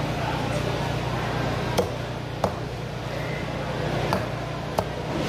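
Cleaver strikes cutting up a large red snapper on a wooden chopping block: four short sharp knocks spread over a few seconds, over a steady low hum.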